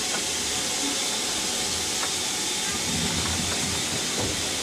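Steam train hauled by BR Standard Class 4 locomotive 75014 moving off, heard from an open carriage window: a steady hiss with a low rumble from the train underneath.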